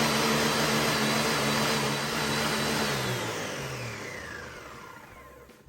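Kitchen blender running at full speed, blending bananas and frozen strawberries with milk and water. About three seconds in it is switched off and the motor's whine falls in pitch as it spins down over about two seconds.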